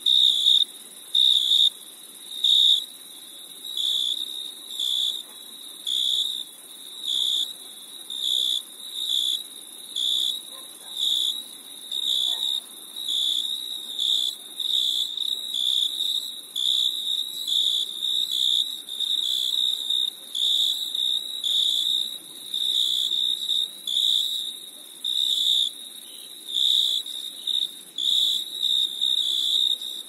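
Cricket chirping: a steady run of short, high, pure-toned chirps, about one to two a second. They are loudest at the start and come closer together later on.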